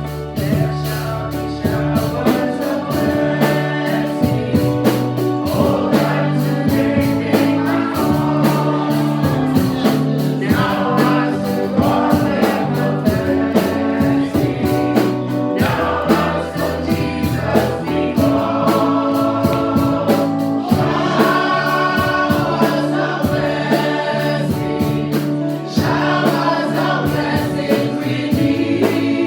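Gospel praise and worship music: a choir sings over a band with sustained bass and keyboard chords and a steady beat.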